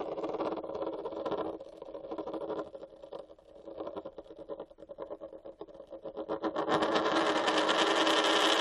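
A metal coin spinning on its edge on a hard surface, a fast rattle with a ringing tone. The rattle thins out in the middle, then from about two-thirds of the way through grows louder and quicker as the coin wobbles down towards settling flat.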